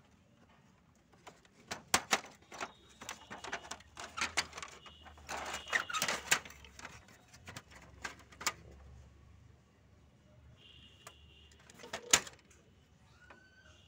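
Plastic clicks, knocks and rattles of the HP ink tank 5820 printer's door assembly being worked loose and pulled free by hand, with a dense run of rattling about five seconds in and a sharp knock about twelve seconds in.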